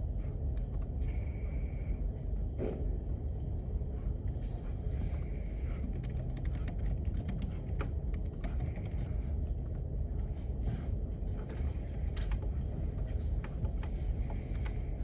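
Irregular clicks of typing on a computer keyboard over a steady low hum of room ventilation.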